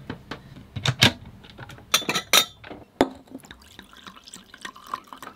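Glass wine bottle clinking and knocking as it is handled and opened, then white wine poured into a stemmed wine glass near the end, with a gurgling tone that rises a little as the glass fills.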